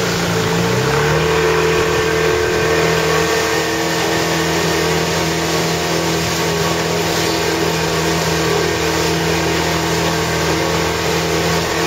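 Outboard motor of a small boat running steadily under way; its pitch shifts in the first second, then holds even.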